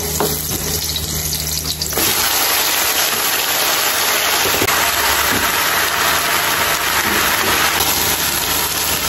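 Chopped garlic sizzling softly in hot oil in a wok; about two seconds in, a loud steady hiss takes over as wet sweet potato leaves go into the hot oil and are stir-fried with a wooden spatula.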